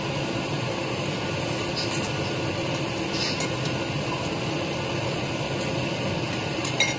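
A person slurping instant noodles off chopsticks, a few short sucking slurps, over a steady background hum.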